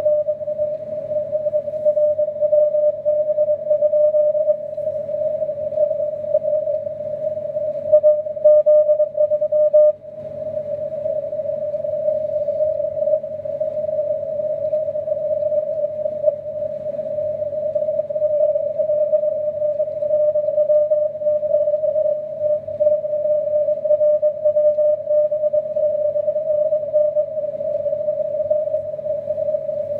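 Shortwave receiver in CW mode on the 80 m band: noisy hiss squeezed through a narrow filter into a steady tone around 600 Hz, with a weak Morse code signal in the noise. The sound drops out briefly about ten seconds in.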